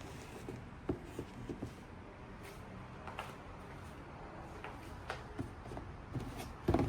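Handling sounds: scattered soft clicks and taps over low room noise, with one louder knock near the end.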